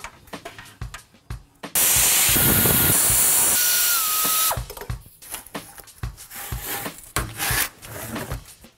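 A pneumatic air tool on a shop air hose tightening a fastener, running for about three seconds as a loud steady hiss with a thin whine that drops slightly in pitch just before it cuts off. Quieter background music plays around it.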